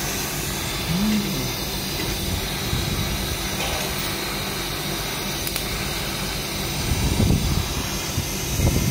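TIG (argon) welding arc on a stainless steel pipe joint, a steady hiss as the torch is weaved along the weld.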